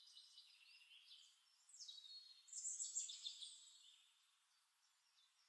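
Near silence, with faint high-pitched chirps that are strongest a little past halfway through.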